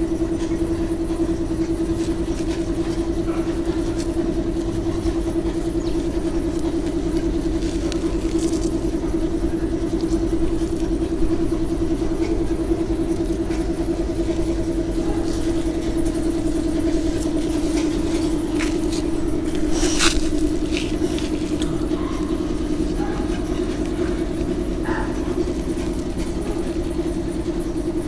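A motor running steadily with a constant-pitched hum and low rumble. A few short clicks and knocks come around twenty seconds in.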